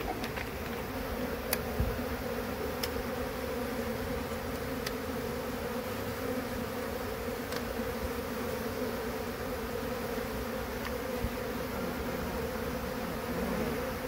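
Many honeybees buzzing around an opened colony: a steady, dense hum, with a few light clicks.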